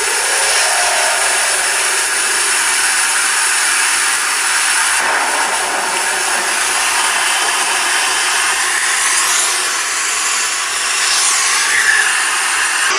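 3D surround test audio playing through a Redmi K40 (Mi 11X) smartphone's stereo loudspeakers: a steady, dense rushing noise with almost no bass. Its texture shifts about five seconds in, and faint sweeping tones come through near the end.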